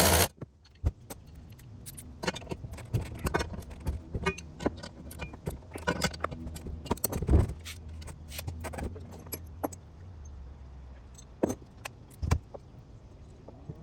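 Irregular metallic clinks, taps and knocks of tools and hardware being handled, over a low steady engine hum, with a louder knock about seven seconds in and another near the end.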